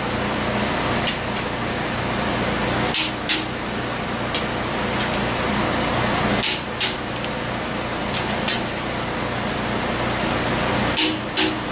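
Torque wrench on a Ford 460 big-block's head bolts clicking off at its set torque: three sharp double clicks, about three and a half seconds apart, with lighter ticks between them as the wrench is swung back onto the next bolt.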